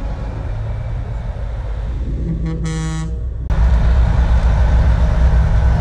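Semi truck air horn blowing one blast of about a second that cuts off sharply, over the steady low rumble of passing diesel trucks. The rumble jumps louder just as the horn stops.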